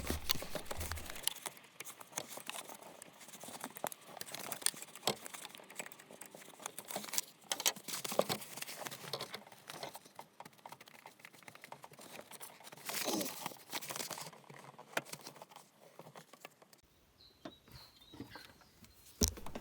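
Hand-tool work on rubber fuel hoses: irregular clicks, scrapes and rustles as the old single-ear hose clamps are worked off and the hoses pulled from their pipes.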